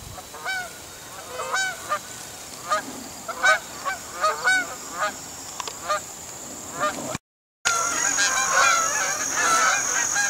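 Geese in flight honking: scattered single honks from a small flock, then, after a cut about two-thirds of the way through, a larger flock calling constantly with many overlapping honks.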